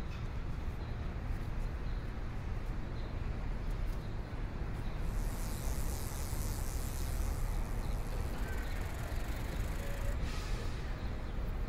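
Steady low rumble of city noise, with a stretch of hissing starting about five seconds in and lasting two or three seconds, and a shorter hiss about ten seconds in.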